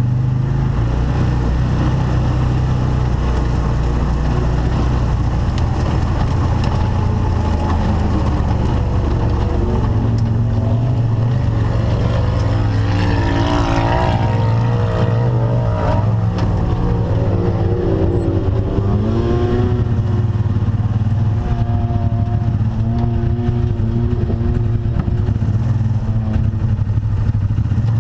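Side-by-side UTV engine running steadily as it drives the trail. Through the middle stretch the engine note wavers up and down.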